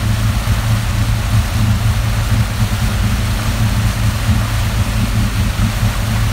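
A motorboat's engine running at a steady speed, a low drone, with a hiss of water and wind over it.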